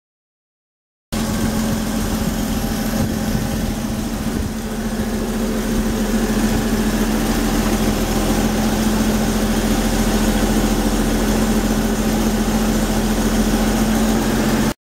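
Freshly reassembled Chevrolet inline six-cylinder engine in a Chevy II Nova, running at a steady idle. The sound cuts in abruptly about a second in and stops abruptly just before the end.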